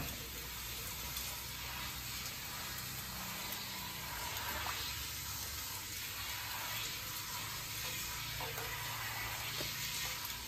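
Hand-held shower sprayer at a salon backwash basin running water onto a client's hair and into the basin, a steady hiss of spraying water.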